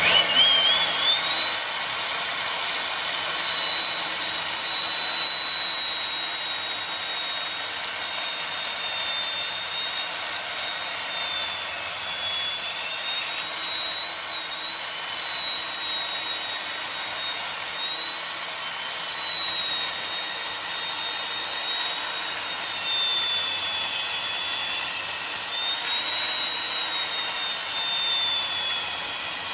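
Corded electric chainsaw cutting into the end grain of a turned hardwood table pedestal. Its high motor whine spins up at the start, then holds, with the pitch sagging and recovering several times as the chain bites into the wood.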